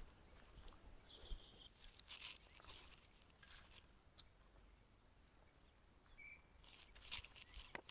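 Faint footsteps crunching on dry ground and grass, in uneven clusters, over a steady faint high hum, with a couple of short chirps.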